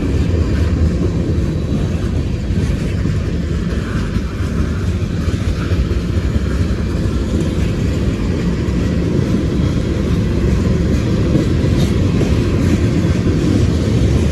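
Slow-moving CSX freight train passing, its cars rolling steadily over the rails.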